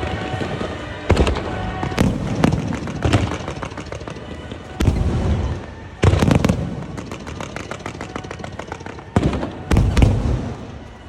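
Fireworks going off: a string of loud, sharp bangs at irregular intervals, each trailing off, with a quick run of many small crackling reports a little past the middle.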